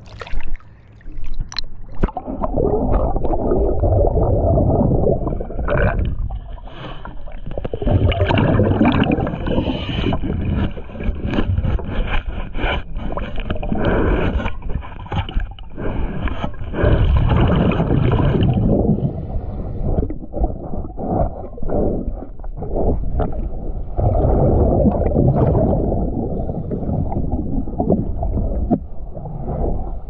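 Underwater sound of a diver's breathing: exhaled bubbles gurgling up from the regulator in swells of a few seconds each, with clicks and knocks in between.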